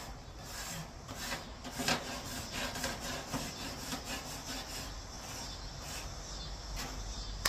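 A barbecue grill being scrubbed and scraped: a run of quick, irregular rasping strokes.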